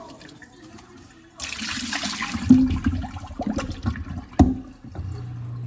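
Water running from a kitchen tap, starting about a second and a half in, with a couple of sharp knocks. Near the end a steady low hum begins.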